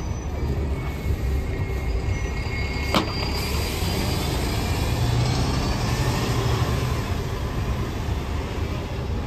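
Bus engine running close by amid road traffic, with a steady low rumble that strengthens about five seconds in. A single sharp click sounds about three seconds in.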